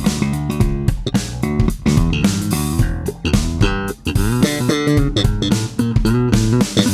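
Electric bass guitar played solo, a quick line of notes with many sharp, percussive attacks.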